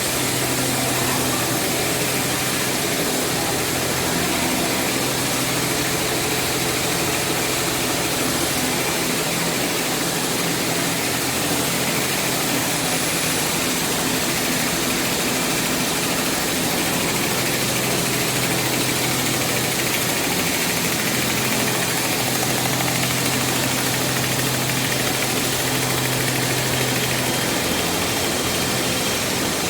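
Base oil distillation plant running: a steady industrial machinery noise with a constant low hum from its motors and pumps.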